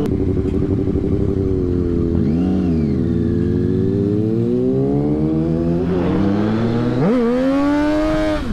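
Motorcycle engine heard from the rider's seat, its note sinking and rising as it rides, then climbing sharply as it accelerates about seven seconds in. Another vehicle's engine note briefly rises and falls a couple of seconds in.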